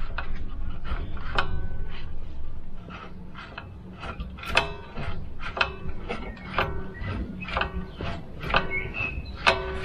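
Handbrake shoes and springs of a Volvo 940's drum-in-disc rear brake clacking as the handbrake cable is worked by hand, a metallic click with a short ring about once a second.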